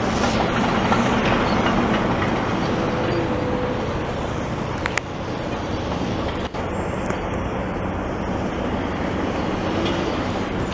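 Steady drone of heavy diesel machinery at work: wheel-loader-mounted snowblowers throwing snow and dump trucks unloading. A short sharp click comes about halfway through.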